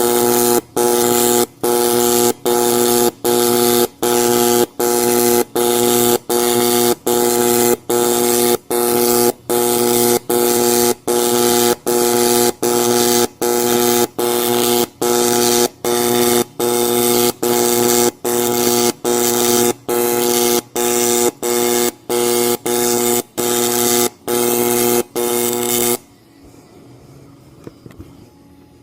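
AC TIG welding arc on anodized aluminium from a Miller welder, buzzing loudly and pulsing on and off about twice a second as a stack-of-dimes bead is laid. The arc cuts out about 26 seconds in.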